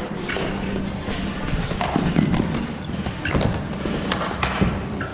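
Floor hockey play on a hardwood gym floor: scattered, irregular clacks and thuds of sticks, ball and sneakers striking the floor and each other.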